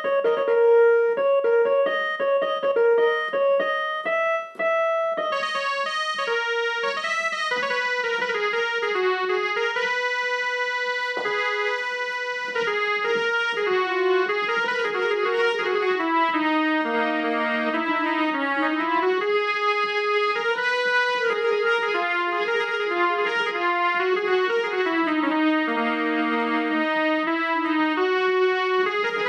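Electronic harmonium played by hand: a melody of held, overlapping notes. After a brief break about four and a half seconds in, the tone turns brighter and fuller.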